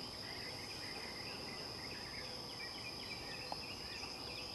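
Steady high-pitched insect drone, with scattered faint bird chirps over it.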